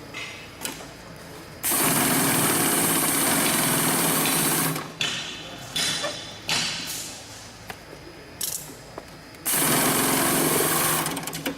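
Heavy-duty 80700C1H bulk-bag (FIBC) industrial sewing machine stitching, in two runs of about three seconds and a second and a half, with short clicks and knocks between them.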